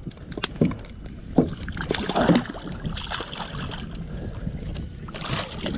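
Water splashing at the side of a boat as a blue catfish is grabbed by the jaw at the surface and thrashes, with several sudden splashes in the first half and another about five seconds in.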